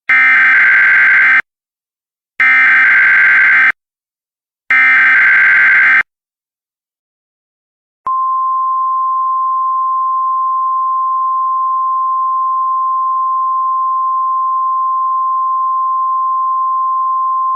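Emergency Alert System signal: three bursts of digital header data noise, each a little over a second long, then after a short silence the alert's attention tone, a single steady high pitch starting about eight seconds in.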